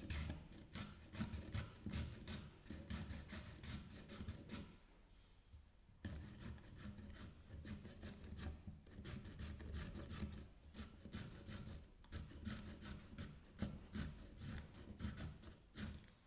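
A carrot is rubbed back and forth over a stainless steel julienne shredder, shredding it. It gives a rapid train of rasping strokes, about three a second, with a pause of about a second some five seconds in.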